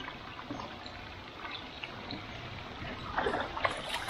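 Flowing freshwater stream trickling steadily, with a brief louder burst of noise about three seconds in.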